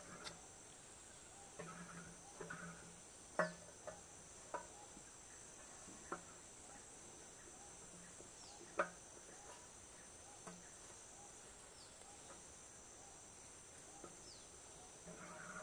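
A steady, high-pitched insect chorus. Scattered sharp clicks and knocks come from hands and tools working on a small engine-driven water pump, the loudest about three and a half seconds in and again about nine seconds in.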